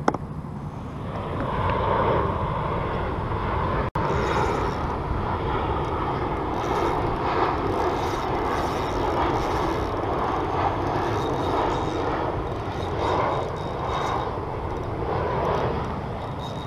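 A steady engine drone that builds about a second in and then holds.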